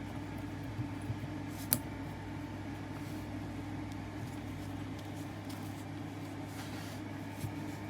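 Steady low hum, with a single sharp click a little under two seconds in and a few faint taps.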